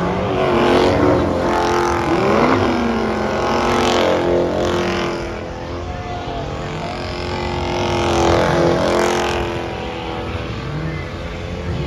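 A Dodge Challenger drifting in circles: its engine revs rise and fall over and over while the spinning rear tyres screech and smoke, loudest about a second in and again near the end.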